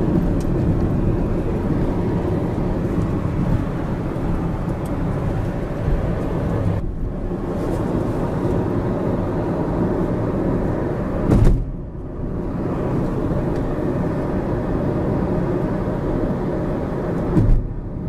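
Road and engine noise inside a moving car, a steady low rumble, with two brief thumps, one about halfway through and one near the end.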